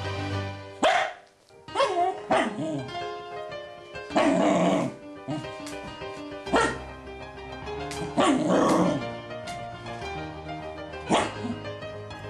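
Scottish terriers barking several times in short bursts over background music.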